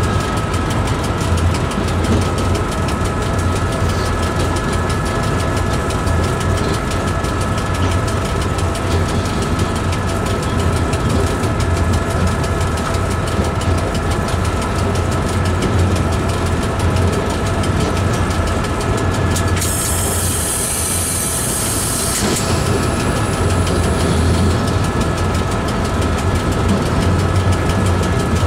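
Train running through a long railway tunnel, a steady loud rumble of wheels on rails with a low drone and a faint steady whine. About two-thirds of the way through, a high hiss lasts two or three seconds.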